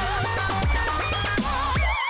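Dubstep music: a heavy steady bass under wavering synth lines and quick falling sweeps.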